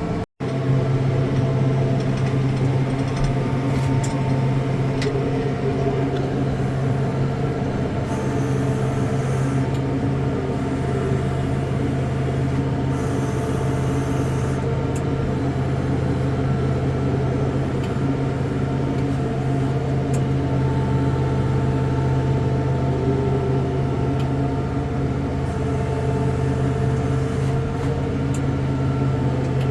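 Vehicle engine running steadily at an even, unchanging pitch, with a brief cut-out just after the start.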